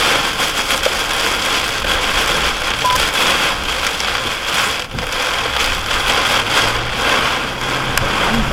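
Heavy rain pouring down and drumming on a vehicle in a severe thunderstorm, a loud steady hiss flecked with the ticks of drops. A faint low hum joins it in the second half.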